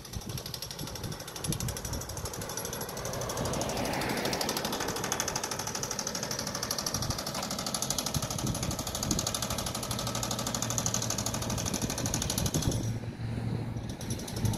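Jackhammer breaking up concrete: a rapid, steady hammering that dips briefly about thirteen seconds in.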